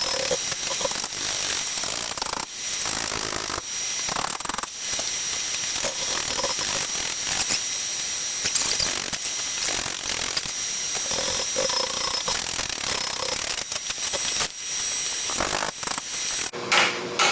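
Hand tools at work on a power hammer's die fitting: steady mechanical ratcheting and rubbing, broken by a few sharp knocks.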